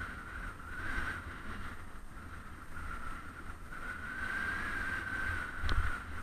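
Wind buffeting the microphone and the rolling noise of a bicycle being ridden along a road, with a steady, slightly wavering high hum. A single sharp knock sounds near the end.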